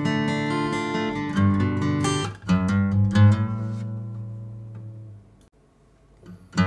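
Hsienmo Linglong acoustic guitar with a sinker redwood top and cocobolo back and sides, played fingerstyle: a picked melody over bass notes, then a chord about two and a half seconds in that rings out and fades almost to silence. Playing starts again near the end.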